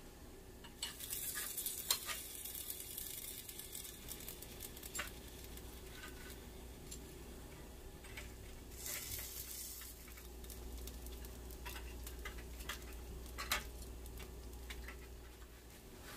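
Food sizzling while it cooks, with two louder surges of sizzle: one starting about a second in and lasting a few seconds, and a shorter one around nine seconds in. Light clicks and knocks are scattered throughout.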